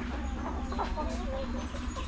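A flock of chickens clucking and calling in many short overlapping calls, over a steady low hum.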